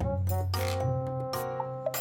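Background music with a steady beat: a bass line, pitched melody notes and regular cymbal ticks.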